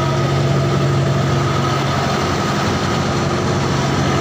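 A fishing boat's engine running steadily, a constant low hum.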